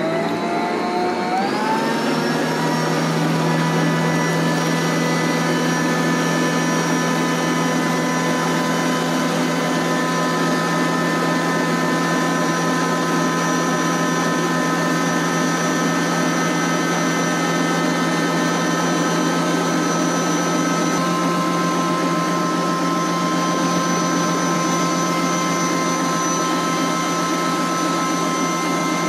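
Stand mixer with a center-post bowl whisking egg whites into meringue on high speed. The motor's whine rises in pitch over the first couple of seconds as it comes up to speed, then runs steady.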